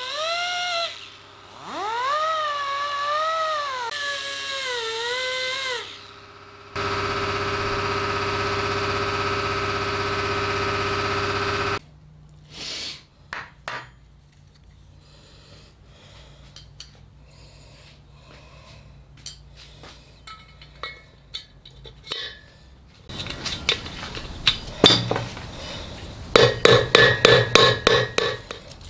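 Right-angle die grinder with a sanding disc spinning up and sanding a cast compressor part. Its whine rises and wavers under load, then runs steady and cuts off about twelve seconds in. Then come light clicks and metal taps as a piston in a ring-compressor band is fitted into the finned cylinder, with a quick run of sharp clicks near the end.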